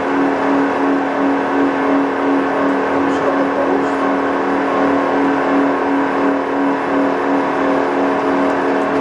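CNC pipe threading lathe running with a steady hum.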